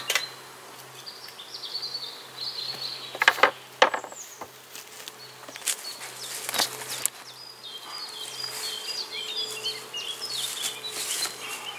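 Birds singing and chirping over a faint steady buzz of honeybees at the hives. Several short knocks and rustles of handling break in, the loudest two about three to four seconds in.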